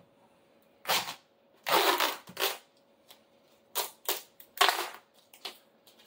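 Duct tape being peeled off a tin-can seed-log mold, in several short crackling pulls.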